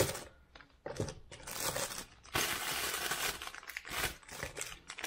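Plastic packaging crinkling and rustling in quick crackles as a part is pulled out of its wrapper, starting about a second in.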